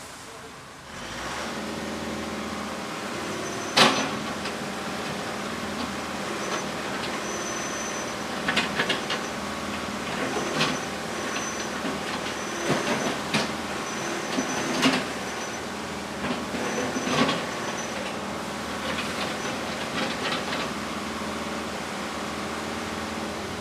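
Heavy construction machinery working: an engine starts running steadily about a second in, with repeated metal clanks and clatters, the loudest about four seconds in, and an on-and-off high squeal.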